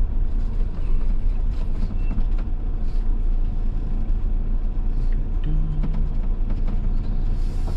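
Motorhome running at low speed, a steady low rumble of engine and road noise with a few light rattles.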